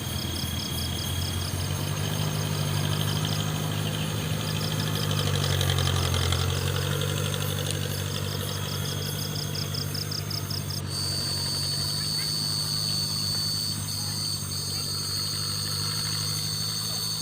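An engine running steadily at an even idle, with insects chirping in quick high pulses behind it.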